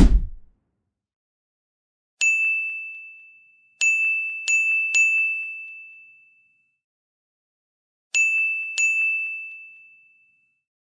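Six bell-like ding sound effects, each a single clear high tone that rings out and fades over about a second and a half: one, then three in quick succession, then two more near the end. A short whoosh ends just at the start.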